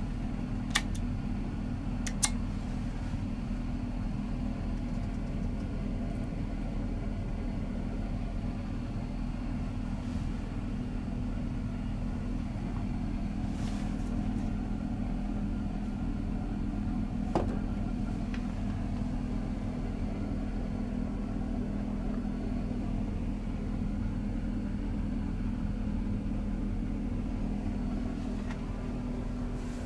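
Steady rumble and low hum of a Caledonian Sleeper carriage heard from inside a compartment, with a few short sharp clicks about a second in, just after two seconds and again around seventeen seconds.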